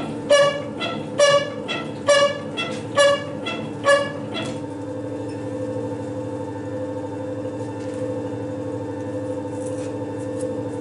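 Metal shaper cutting a keyway in a lathe change gear with heavy tool chatter: a harsh ringing screech on each cutting stroke, about one a second, five times. The chatter is loud enough that the machinist suspects the stroke speed is too high. About four seconds in the cutting stops and only the machine's steady hum goes on.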